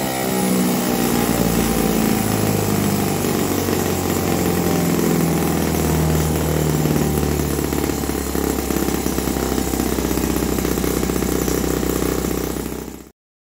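Saito FA-40a 6.5 cc single-cylinder four-stroke glow engine running under load, driving the aluminium flywheel of an inertia dyno. The sound cuts off abruptly near the end.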